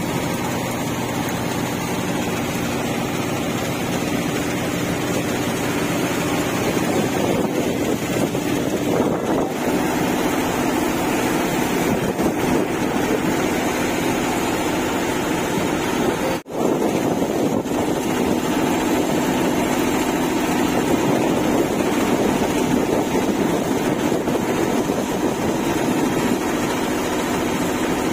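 Heavy monsoon downpour: a steady hiss of rain on a flooded street, with a motorcycle engine running low underneath. There is a brief break about halfway through.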